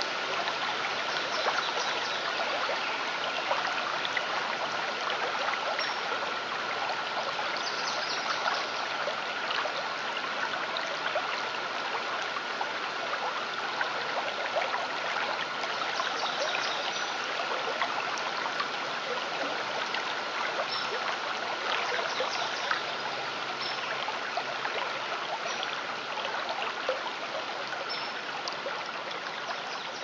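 Running stream water trickling and splashing, with a steady high tone held underneath it. The water eases slightly near the end.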